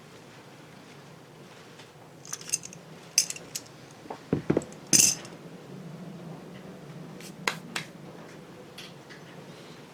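Metal tools and engine parts clinking and knocking against each other: a scattered series of sharp metallic clicks and clanks, the loudest about five seconds in, over a steady low hum.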